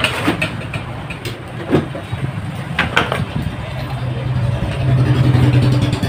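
A steady low engine-like hum that swells louder near the end, with a few sharp clicks and taps from hands handling a small circuit board.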